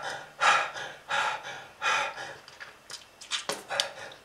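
A person's labored, gasping breaths, with three broad breaths in the first two seconds and then shorter, quicker ones near the end.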